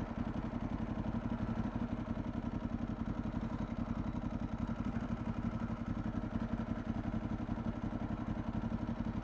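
Ducati 1098S's V-twin idling steadily through a full carbon Termignoni exhaust: an even, unchanging pulsing beat with no revving.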